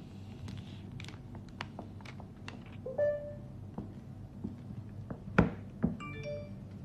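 Plastic screen-protector film and its release liner being peeled and handled on a smartphone, making scattered light clicks and taps, the loudest a sharp tap about five and a half seconds in. A short squeak comes about three seconds in, and a few brief high tones ring near the end.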